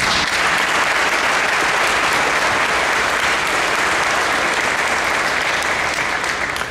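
Audience applauding: a steady round of hand-clapping that dies away near the end.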